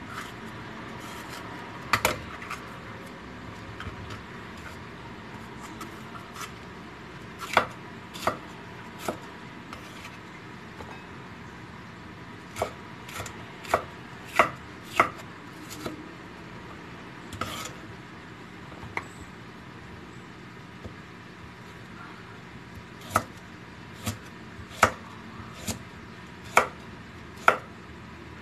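Knife chopping on a cutting board: irregular sharp knocks, some single, some in quick runs of a few strokes, with pauses between.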